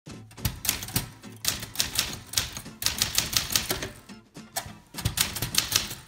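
Sears Cutlass manual typewriter, a rebranded Smith-Corona, being typed on: quick runs of sharp key strikes with short pauses between them.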